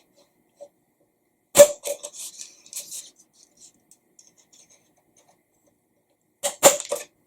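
Handheld hole puncher punching through a cardboard paper towel tube: a sharp crunching snap about one and a half seconds in with rustling handling after it, and another quick cluster of snaps near the end.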